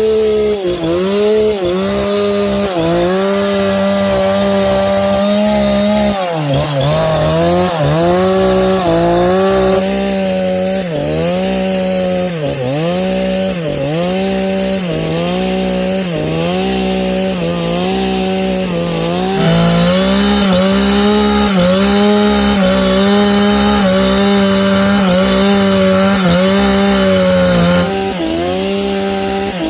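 Gasoline chainsaw cutting through a large log. The engine note sags and recovers under load roughly once a second, then runs steadier and brighter in the second half.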